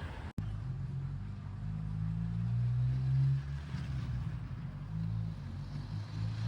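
A motor vehicle's engine running close by, a low steady hum that grows louder about halfway through and then eases off.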